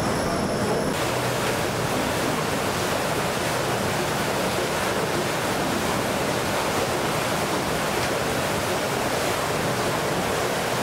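A steam-driven scoop wheel turning, its paddles churning and lifting water with a steady, even rushing and splashing noise. From about a second in, this replaces an engine-room hum with a high whine.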